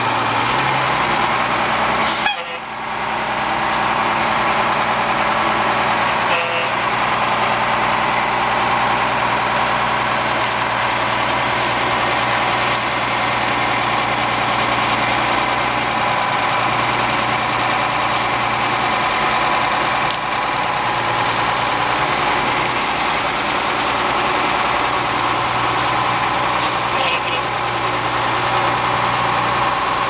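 Diesel engine of a 1983 Peterbilt 348 heavy truck running steadily as the truck moves slowly, with one brief sharp burst about two seconds in.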